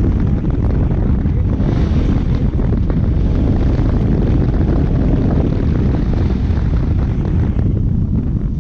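Heavy wind buffeting on the microphone of a Bajaj Pulsar RS 200 at high speed, with the motorcycle's single-cylinder engine running hard beneath it. The rush thins out a little near the end.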